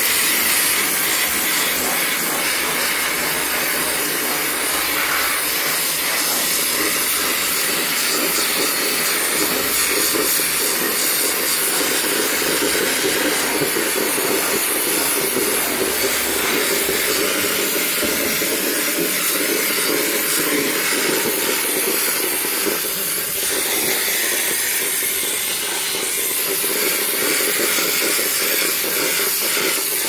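Handheld steam cleaner jetting steam through the fins of an air conditioner's evaporator coil: a steady, continuous hiss.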